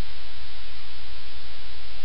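Steady, loud static hiss over a low hum.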